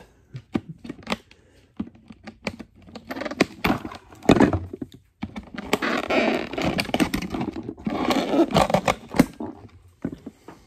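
Plastic toy-kit pieces and their packaging being handled: scattered clicks and snaps, with two longer spells of crinkling and scraping, one about three seconds in and a longer one from about six seconds.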